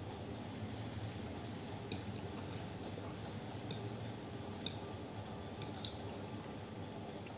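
A spoon clicking and scraping against a plate a few times as food is scooped up, over a steady low background hum.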